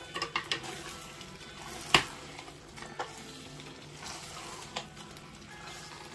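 A spoon stirring stew in a pot while the sauce sizzles, with a few knocks of the spoon against the pot, the sharpest about two seconds in.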